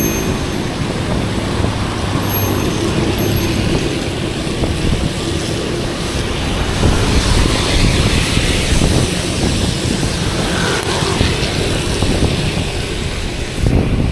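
Road noise while cycling in the rain: wind on the action camera's microphone, tyres hissing on a wet road and motor traffic around. It is steady, rising somewhat from about seven to nine seconds in.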